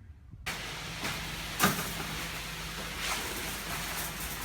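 Concrete truck's engine running steadily under a wash of noise, starting abruptly about half a second in, with a sharp knock about a second and a half in and fainter knocks later.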